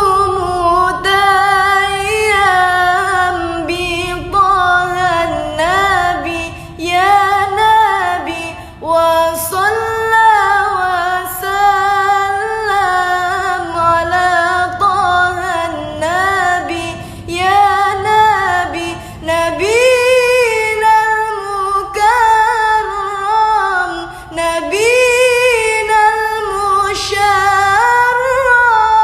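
A single female voice singing a slow, ornamented melody, with long held notes that bend and waver between phrases.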